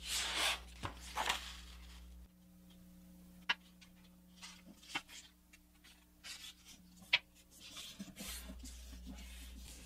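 Sheet of paper being folded in half by hand: a soft rustle and slide as the edge is brought over, then a few sharp ticks and light rubbing as the fold is pressed flat and creased.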